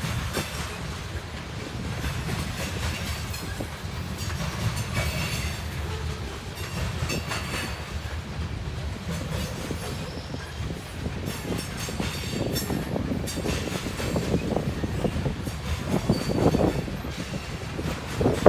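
Covered hopper cars of a grain train rolling past: a steady low rumble with irregular clacks of the wheels over rail joints.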